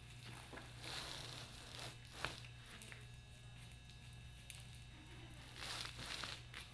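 A piglet crunching dry cereal off a hard floor, in a few faint short bursts, with a steady low hum underneath.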